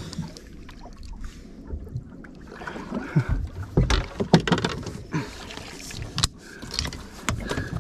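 Landing net's pole and frame knocking and scraping against a small fibreglass boat's gunwale and deck as a netted turbot is lifted aboard. A run of sharp knocks and clicks, loudest in the middle, over a low rumble.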